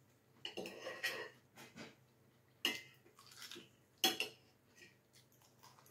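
Tableware clinking on a dining table: a soft clatter of dishes about half a second in, then two sharp clinks of cutlery against a plate or bowl about a second and a half apart.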